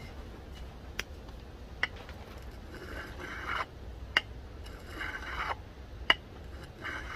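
The tip of a hardened bearing-steel knife blade scratched across a glass bottle in three short gritty scrapes, with sharp ticks as the tip meets the glass between strokes. The steel scores the glass, a test of the blade's hardness.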